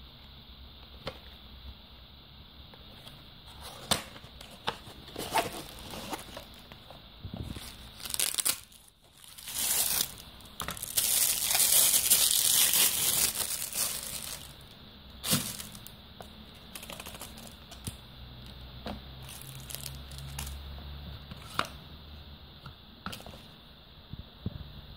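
Thin plastic wrapping crinkling and rustling as it is pulled off a monocular, loudest for a few seconds around the middle. Scattered clicks and taps of cardboard box flaps and handling come before and after.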